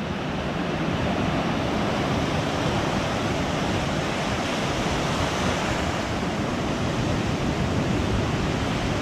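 Ocean surf breaking over rocks: a steady, continuous rush of crashing waves that stops abruptly at the end.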